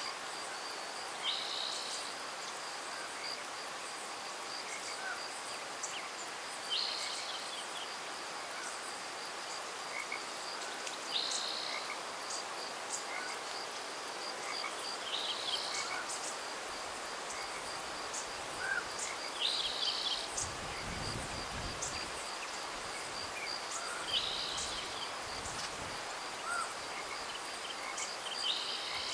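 Steady high insect trill, with a short high call repeating about every four and a half seconds. A low wind rumble on the microphone comes about twenty seconds in.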